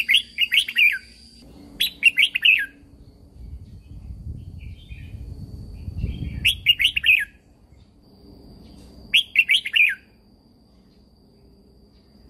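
Red-whiskered bulbul singing: four short phrases of quick, falling whistled notes, a few seconds apart.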